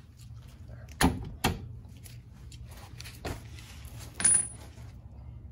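Four sharp metal clinks of hand tools and brake hardware being handled on a rear brake caliper. The last clink, near the end, rings briefly.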